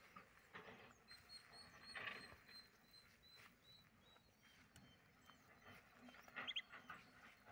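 Near-silent field ambience: faint scattered rustles, with a short cluster of high chirps about six and a half seconds in.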